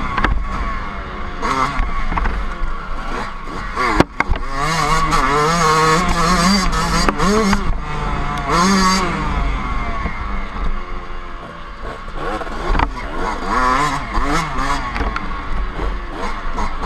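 Dirt bike engine heard from on the bike, revving up and down over and over as it rides a wooded trail, with a sharp knock about four seconds in.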